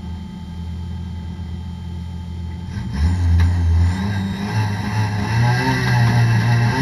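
Toyota Corolla race car's engine heard from inside the cabin, running at low revs, then getting louder about three seconds in as the revs climb and waver.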